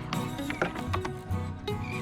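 Background music with held tones and sharp percussive hits.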